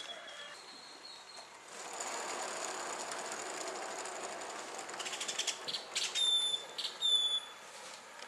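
Steel wheels of a small hand-pushed rail cart rolling along the track: a steady rolling noise, then runs of fast rattling clacks and two short, high, falling squeals near the end.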